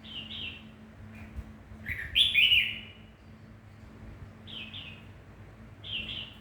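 Pet bird giving short chirping calls, mostly in quick pairs, with the loudest and longest call about two seconds in.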